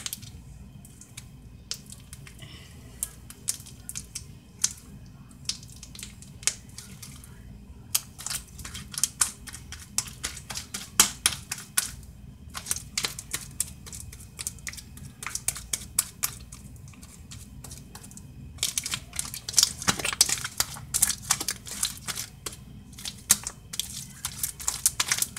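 Homemade glue slime being stretched and squeezed in the hands, giving irregular sticky clicks and pops, sparse at first and much more frequent after about eight seconds and again near the end. The slime is still sticky and clings to the fingers as it is pulled apart.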